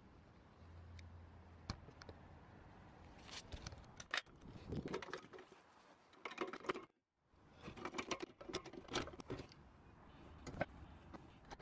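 Faint metallic clicks, clinks and rattles in irregular clusters from a trolley jack and axle stand being worked under a car. The sound cuts out for a moment about seven seconds in.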